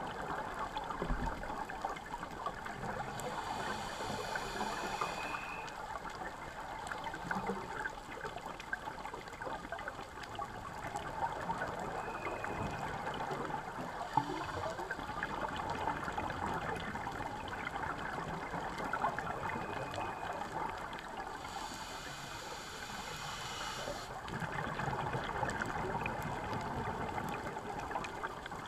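Underwater reef sound picked up through a diving camera's housing: a steady crackling hiss with bubbling, trickling water sounds, and two brief spells of higher hiss, one a few seconds in and one about three-quarters of the way through.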